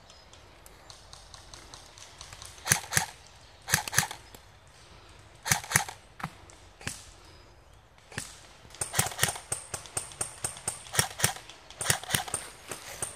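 Footsteps on the forest floor: a few spaced steps, then quicker steps from about eight seconds in.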